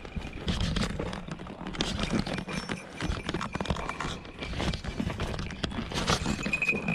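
Footsteps crunching and scuffing through dry desert brush in an irregular run, with rumble from air on the microphone. A short high ringing note sounds near the end.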